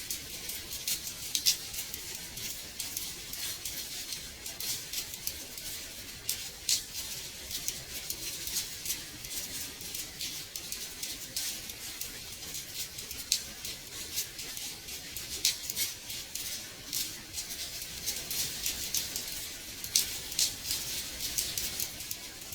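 Rain pattering on window glass: a steady high hiss with many irregular sharp drop ticks, some louder than others.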